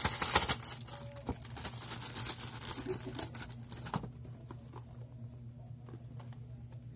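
Plastic courier pouch crinkling and rustling as it is handled and tossed aside, loudest in the first half-second, followed by lighter rustles and taps from handling the cardboard phone box that die down about four seconds in.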